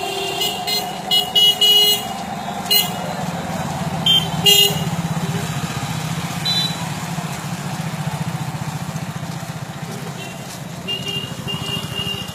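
Vehicle horns tooting in short repeated blasts, several in quick succession about a second in and more scattered later, over the steady hum of a running motorcycle or car engine.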